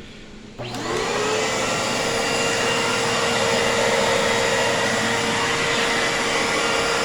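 Iona Fantom Fury 10 amp upright vacuum cleaner switched on about half a second in: the motor spins up with a rising whine and settles into a steady run.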